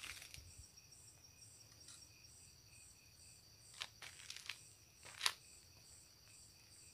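Insects chirping steadily in the tall grass, a high, even pulsing with a thin constant trill under it. A few footsteps crunch on the dirt track about four seconds in and again, louder, a little after five seconds.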